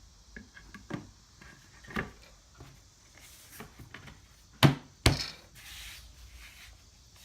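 Wooden boards being handled and fitted: a scatter of light knocks and clicks, then two loud sharp knocks close together a little past halfway, with short rubbing sounds between.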